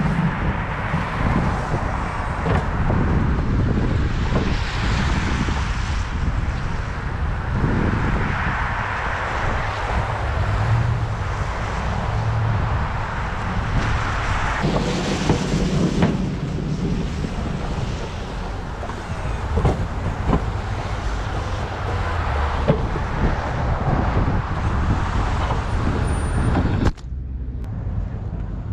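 An engine running steadily, with scattered knocks and clatter; the sound changes abruptly near the end.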